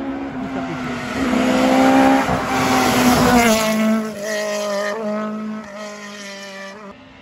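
Rally car at full throttle, approaching and passing close by. Its pitch drops as it goes past about three and a half seconds in, then the engine revs on and fades as the car pulls away.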